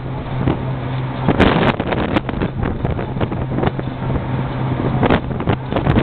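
Wind buffeting the microphone in irregular gusts over a steady low engine hum.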